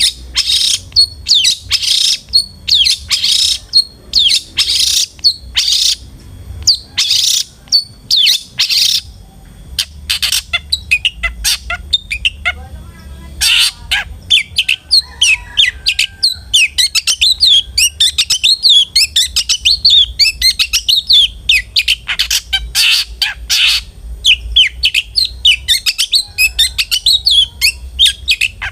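Long-tailed shrike (cendet) in full song. It gives a run of harsh rasping calls for the first several seconds, then breaks into a fast, dense twittering chatter.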